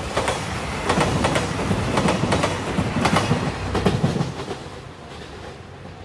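JR Shikoku 2700 series diesel limited express train passing, its wheels clicking over rail joints in quick pairs and groups over a running rumble. The sound fades away about five seconds in.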